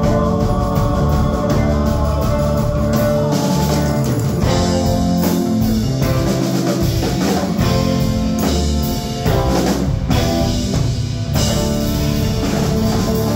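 Live rock band playing an instrumental passage: electric guitars over a steady drum kit beat, without vocals.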